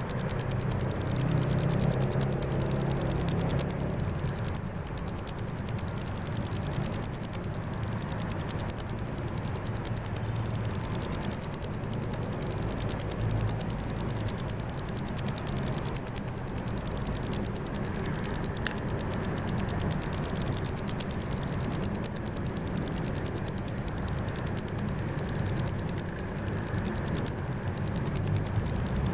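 Crickets trilling in a loud, steady, high-pitched chorus.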